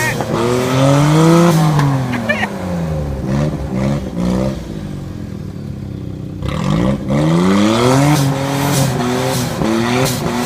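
Off-road vehicle's engine revving hard, pitch climbing and falling over and over as the driver works the throttle on a muddy course, with a quieter stretch in the middle.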